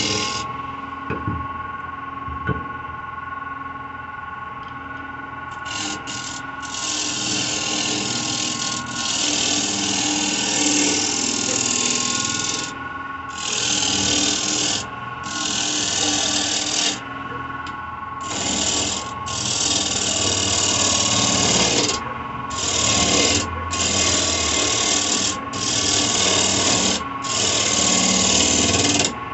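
A wood lathe runs with a steady motor hum while a bowl gouge cuts the outside of a dry spalted birch bowl blank. The cut gives a rough, scraping hiss in repeated passes of one to three seconds each, starting about six seconds in.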